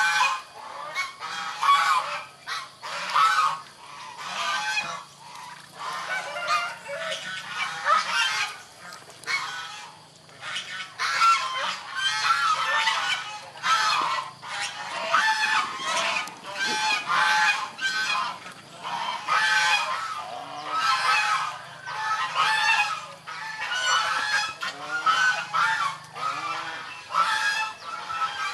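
Geese honking over and over, loud overlapping calls coming about every second.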